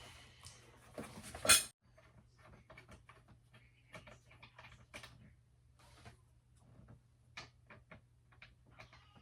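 Light, irregular clicks and knocks of gaming-chair parts being handled and fitted together during assembly, with one sharp, louder knock about a second and a half in. A steady low hum sits underneath.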